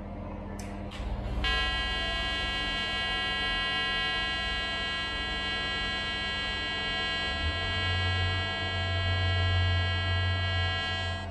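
TIG welding arc on stainless steel, pulsed at about 150 Hz, giving a steady buzzing hum. The arc is struck about a second and a half in and cut off just before the end, and a deeper hum joins about two-thirds of the way through.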